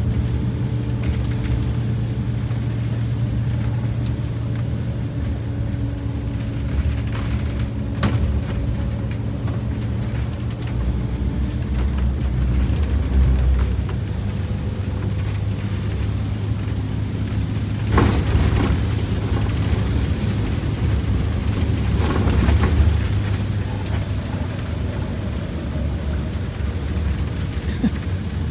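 Freshly rebuilt Detroit Diesel 8V92TA turbocharged two-stroke V8 running steadily under load as the bus drives, heard from inside the cab with road noise. A few sharp knocks break through, the loudest about 18 seconds in.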